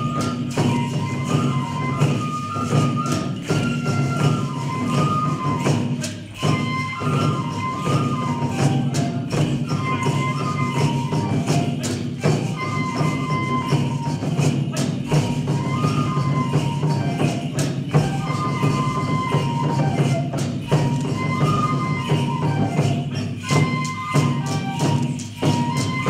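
Japanese folk dance music for a horse dance: a high flute-like melody repeating in short phrases over steady drumming and frequent sharp percussive strikes, with occasional thuds from the dancers' steps on the wooden stage.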